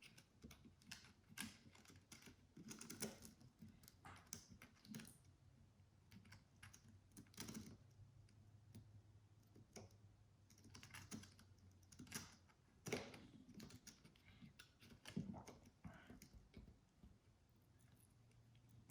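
Faint, irregular small clicks and crinkles of fingers picking at and peeling the backing off a Talon adhesive grip sheet around its cutouts.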